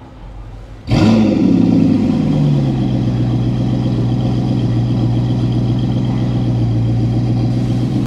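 A combustion car engine bursts into sound about a second in, its pitch falling over the next couple of seconds, then settles into a steady, loud idle-like drone.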